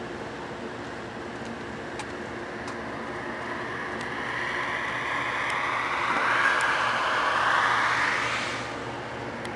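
Heavy harvest machinery running with a steady engine drone. A rushing noise swells over several seconds, is loudest a little past the middle, then drops away shortly before the end.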